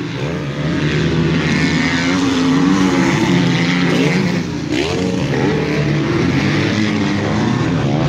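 Motocross dirt bikes racing, their engine notes rising and falling again and again as the riders open and close the throttle, with several bikes heard at once.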